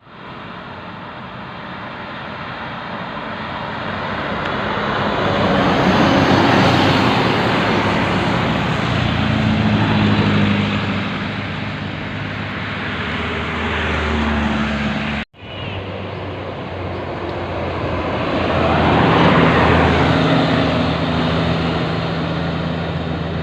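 Heavy road vehicles, typical of buses, passing by: engine drone and tyre rush swell and fade twice, with the sound cutting out abruptly about fifteen seconds in.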